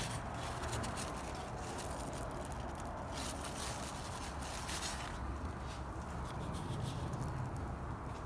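Rustling and crackling of large cucumber leaves being pushed aside and handled while a cucumber is picked from the vine, heard as irregular short crackles with a few denser rustles, over a steady low background noise.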